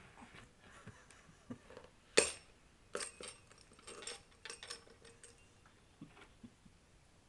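Irregular clinks, clicks and small metallic jingles as a baby handles her toys, with a sharp loudest clink about two seconds in and a cluster of ringing jingles a second later.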